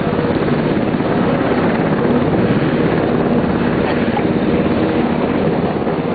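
Military helicopter's rotor beating steadily and fast, mixed with the steady drone of a convoy truck's engine.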